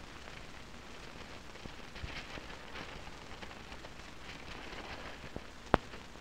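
Cardboard LP record sleeves flicked through in a slotted record rack: brief scratchy rustling in two spells, with small ticks, over a steady hiss. Near the end comes one sharp click, the loudest sound.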